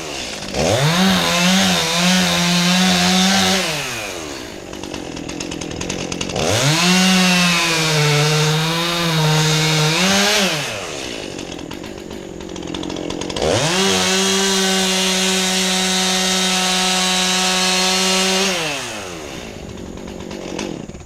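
Two-stroke chainsaw run at full throttle in three long bursts, each spinning up fast and dropping back to idle. In the first two the engine pitch sags and wavers as the chain bites into wood. The wood is a dead pine.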